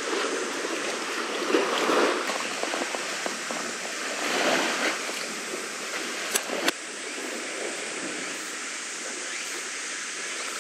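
Steady rushing noise of wind and lapping seawater, with two sharp clicks a little past the middle.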